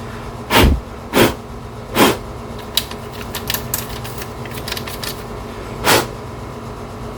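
Four short puffs of air, about a second apart at first and then one more near the end, blown to clear dust from an opened DVD drive. Light clicks and taps from handling the drive's parts come between them.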